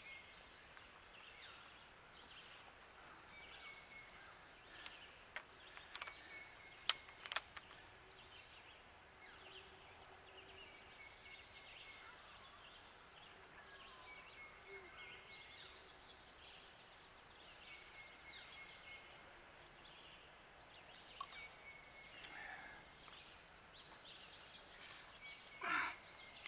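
Quiet outdoor ambience in which a bird calls again and again, about every four seconds, with a few sharp clicks between roughly five and seven and a half seconds in.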